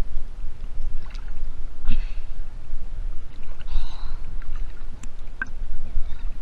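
Water sloshing and lapping against an action camera held right at the water's surface, with a heavy steady low rumble and a few small knocks.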